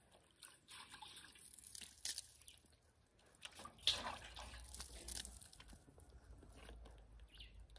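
Faint water splashing and dripping as a face is rinsed with handfuls of water, with a louder splash about four seconds in.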